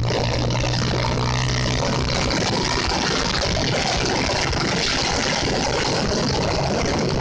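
Motorcycle riding at speed: steady wind rush on the microphone over the engine's low hum, the hum dropping back about two seconds in.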